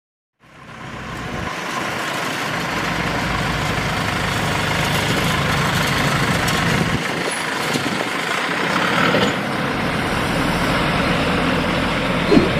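Heavy diesel engine running steadily, with a short louder burst near the end.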